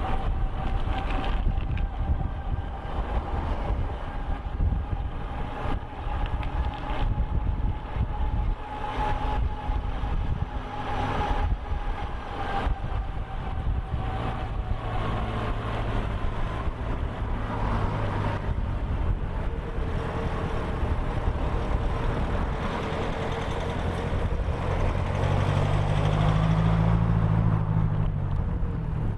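Wind rumble on the microphone and tyre noise from an e-bike riding at speed, under the steady whine of its Bafang 500 W geared hub motor, whose pitch sits lower in the second half. Near the end a car engine runs close by.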